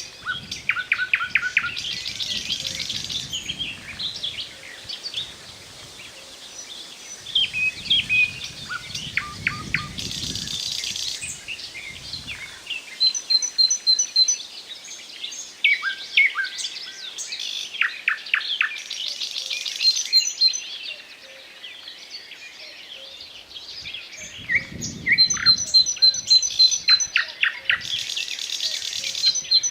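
Nightingale singing: loud phrases of fast repeated clicks, whistles and rattles, separated by short pauses.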